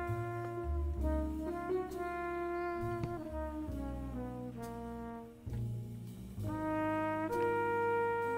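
Background music played on brass instruments: held chords that change about once a second, with a run of falling notes around the middle.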